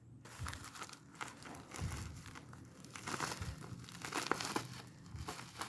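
Plastic packaging being crinkled and handled during an unboxing, in irregular rustling bursts.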